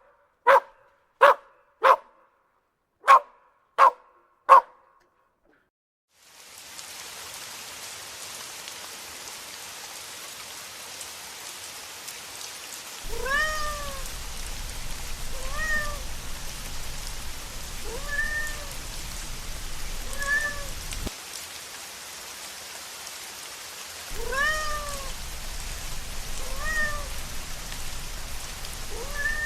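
A puppy gives a quick run of about seven short, sharp barks, then stops. A few seconds later a steady rain-like hiss sets in, and over it a small cat meows again and again, each meow rising then falling in pitch, about every two seconds, with one short pause.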